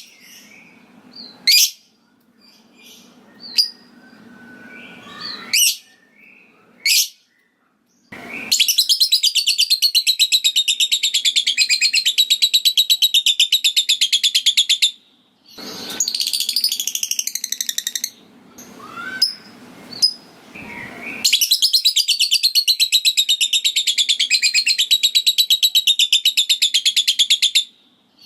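Lovebird calling: a few short, scattered chirps, then about 8 seconds in a long, rapid, unbroken high chatter (the 'ngekek') of about six seconds, which breaks off and comes back twice, the last bout running about six seconds more.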